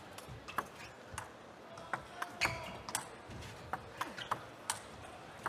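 Table tennis ball clicking off the table and rackets, a sharp tick roughly every half second.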